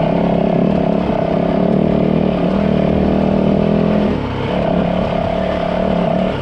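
Yamaha WR450 dirt bike's single-cylinder four-stroke engine running steadily under throttle while riding, easing off briefly about four seconds in before picking back up, then dropping off at the end.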